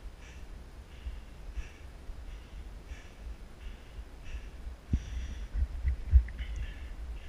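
A hiker's hard, rhythmic breathing while climbing steep stone stairs, in and out in quick alternation, close to a head-mounted microphone. Near the end come a few heavy thumps of footfalls on the stone steps.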